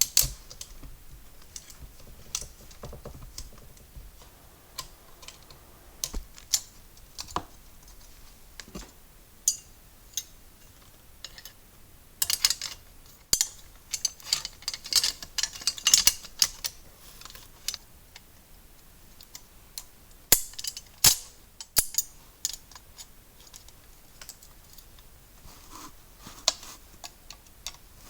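Scattered sharp clicks and light metal clatter of a manual typewriter's parts being handled and fitted back together, with busier runs of clicks about halfway through and again a few seconds later.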